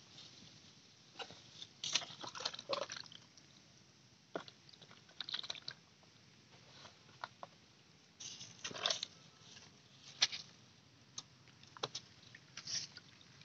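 Hands working in a wet, muddy hole among dry rice stubble: irregular small squelches and splashes mixed with crackles of straw, coming in short clusters.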